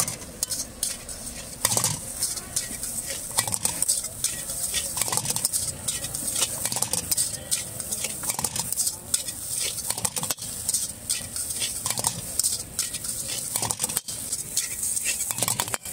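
Metal spatula and ladle scraping and clanking against a large metal wok as egg rice is stir-fried, in quick, irregular strokes over a steady frying sizzle.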